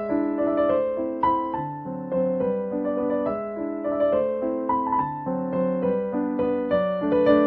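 Background piano music: a gentle melody of notes struck in a steady flow over sustained lower notes.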